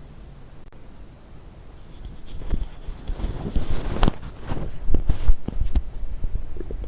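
A human stomach gurgling and rumbling, heard close up, with the gas and liquid of coffee and Diet Coke moving through it. It starts about two seconds in as a run of short gurgles and squelchy clicks over a low rumble.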